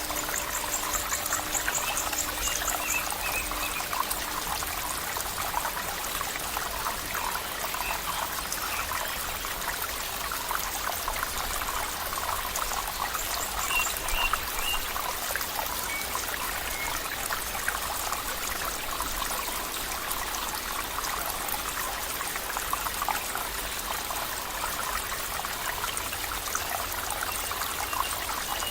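Water trickling and babbling steadily over stones in a shallow stream. A few faint chirps sound now and then.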